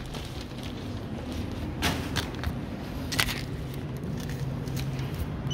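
Steady low background hum of a supermarket interior, with a few short clicks and knocks about two and three seconds in.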